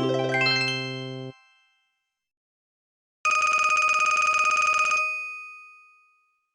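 LG6200 mobile phone ringtones: the last notes of a many-note melody end about a second in, then after a short pause a bell-like ringing tone sounds for under two seconds and fades away.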